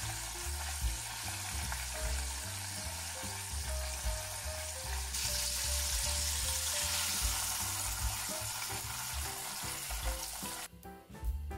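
Batter-coated chicken drumsticks deep-frying in hot oil: a steady sizzle that cuts off abruptly near the end, over background music.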